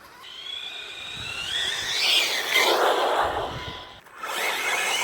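Large electric RC car's motor whining and rising in pitch as it accelerates, with a rushing noise from the drivetrain and tyres. It cuts out about four seconds in, then whines again.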